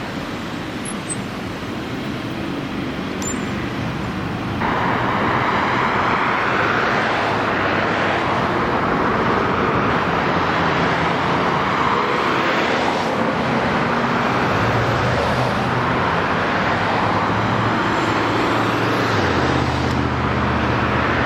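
Car driving along a city street: steady road and traffic noise, which turns suddenly louder about four and a half seconds in.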